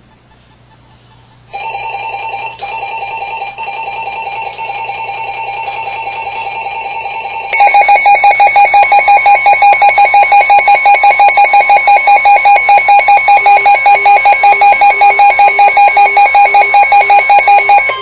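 Emergency Alert System alert tones announcing a severe thunderstorm warning: a steady electronic tone starts about a second and a half in, then at about seven and a half seconds gives way to a louder tone pulsing about five times a second.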